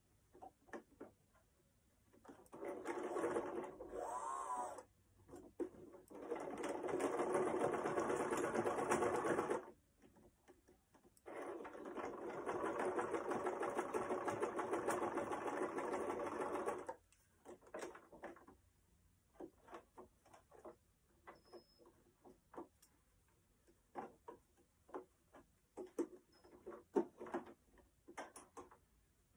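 Small electric domestic sewing machine stitching in three runs, the longest about five seconds, stopping and starting between them. In the second half, only a series of light clicks and taps.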